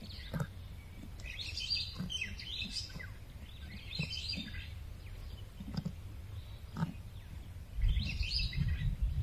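Birds chirping in short bursts of calls, four times, over a steady low rumble that swells near the end, with faint soft ticks about once a second.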